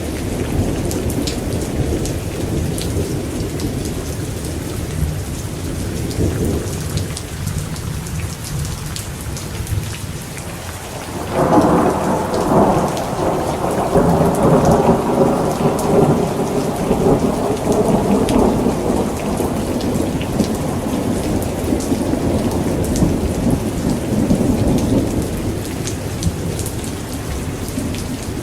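Thunderstorm: steady rain with fine raindrop ticks, under a low rumble of thunder that fades out. About a third of the way in, a new peal of thunder breaks suddenly and rolls on loudly for several seconds before slowly dying away.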